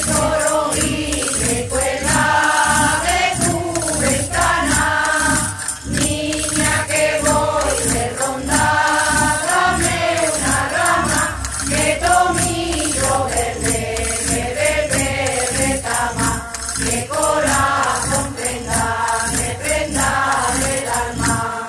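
Andalusian folk ronda song played by a campanilleros group: a melody over the steady jingling of small bells and other hand percussion.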